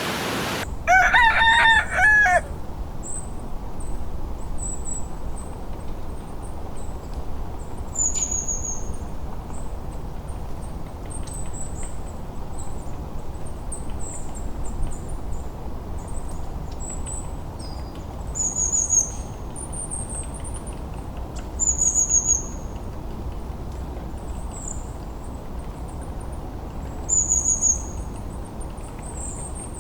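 A rooster crows once, about a second in, over the steady rush of a river. High, short bird chirps then repeat every few seconds.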